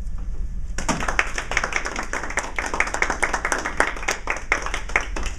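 A small audience clapping, starting about a second in and stopping shortly before the end.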